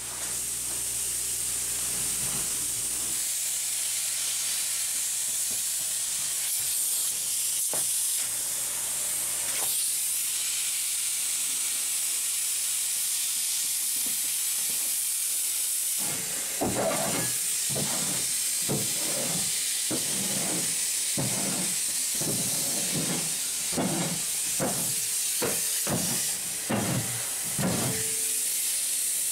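Spray foam gun hissing steadily as it sprays insulation foam into the wall cavities. In the second half there is a run of irregular knocks and rustles.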